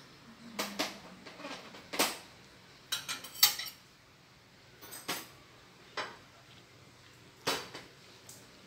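Ceramic dinner plate and metal cutlery clinking and clattering as a table is cleared after a course: a string of sharp clinks, loudest about three and a half seconds in.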